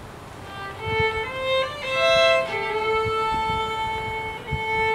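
Violin playing a slow melody of long held notes.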